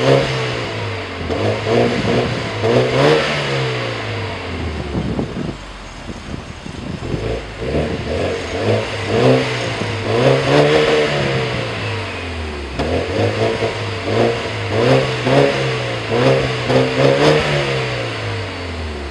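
BMW 528 (F10) revved at standstill through its rebuilt exhaust, split to outlets on both sides of the rear bumper. The engine is blipped up and back down again and again, with some longer revs and several quick blips in a row later.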